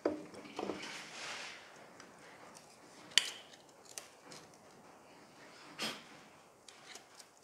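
A few scattered metal clinks and knocks from a bar levering at a seized cylinder head held on its locating dowels. The loudest is a sharp knock about three seconds in, with smaller taps after it.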